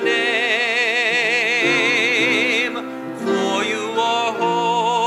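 A male soloist sings a long held note with wide vibrato, then a second vibrato note near the end, over sustained instrumental chords that change about once a second.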